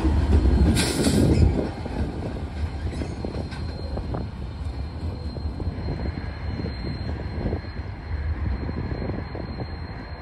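A lashup of BNSF diesel-electric locomotives running light rolls past and away, with low engine rumble and wheels clicking over the rails. There is a brief high hiss about a second in. The sound drops to a quieter rumble after about a second and a half as the units pull away.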